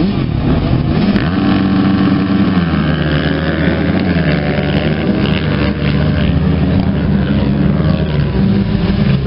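A pack of motocross bikes revving on the start line and then accelerating away together, several engines running at once with their pitch shifting up and down.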